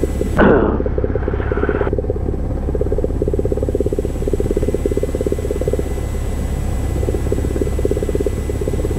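Cessna 172 Skyhawk's piston engine idling on the ground, heard inside the cabin as a steady, fast-pulsing low drone. About half a second in, a brief burst of higher noise lasts about a second and a half.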